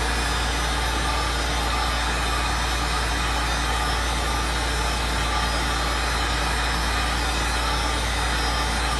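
Heat gun running steadily on its low setting: an even rush of blown air over a low hum.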